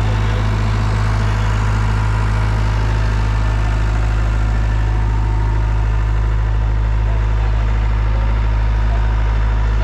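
Vehicle engine idling steadily at an even low pitch.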